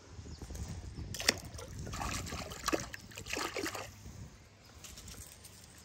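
Water sloshing and splashing as a caught bass is let go back into the water, most of the splashing between about two and four seconds in. A sharp knock comes about a second in.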